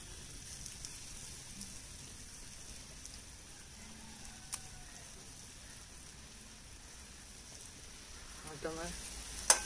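Sliced onions frying in coconut oil in a small pan: a faint, steady sizzle. There is a sharp tick about four and a half seconds in, and a loud metal clack near the end as the spatula strikes the pan.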